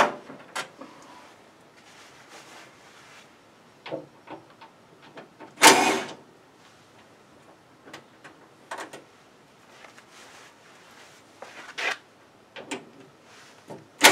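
Cordless driver backing screws out of a tankless water heater's sheet-metal front cover in short bursts of about half a second, at the start and about six seconds in. Light clicks and knocks of handling the metal panel come in between.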